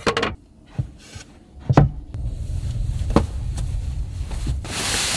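Bedding being handled on a wooden van floor: a few sharp knocks and taps as a thick mattress pad is set down and moved, with fabric rubbing. A low rumble comes in about two seconds in, and a louder rustling hiss comes in near the end.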